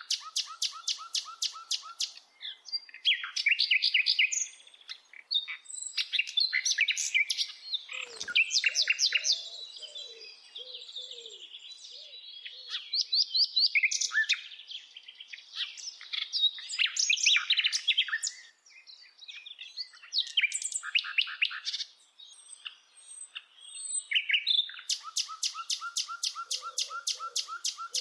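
Birds singing: a continuous run of varied chirping phrases, with fast trills at the start and again near the end.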